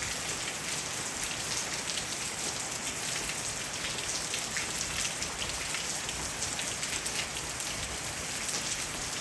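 Steady rain falling, with many single raindrops tapping on a roof and on leaves.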